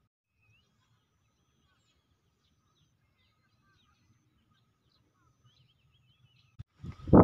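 Faint, scattered bird chirps over a faint low rumble of outdoor background, then near the end a sudden loud rush of noise.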